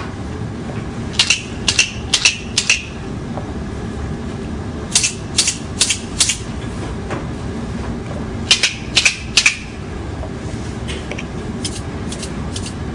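Montessori sound cylinders, small lidded cardboard cylinders filled with dry grains or beads, shaken by hand in three bursts of about four sharp rattling shakes each, a few seconds apart, then a few fainter shakes near the end. A steady low room hum runs underneath.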